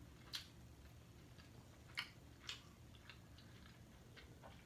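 Faint chewing while eating pizza, with a few soft mouth clicks and smacks: one about a third of a second in, then two about two seconds and two and a half seconds in.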